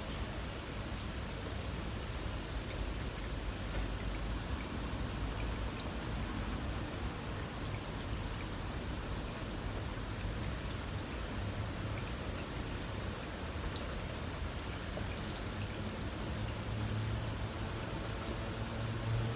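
Light rain falling steadily, with a faint high, thin insect trill that fades out about two-thirds of the way through.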